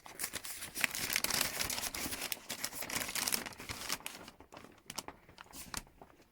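Paper rustling and crinkling as sheets are handled and unfolded, dense for about the first four seconds, then thinning to scattered rustles.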